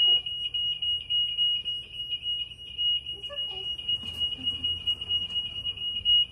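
Golf cart's reverse warning beeper sounding a steady, high-pitched beep about four times a second, the signal that the cart is in reverse.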